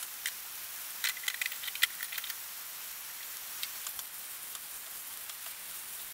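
Chunks of raw lamb sizzling in hot ghee in a skillet on high heat, with a silicone spatula clicking and scraping against the pan as they are stirred. The spatula clicks cluster a second or two in.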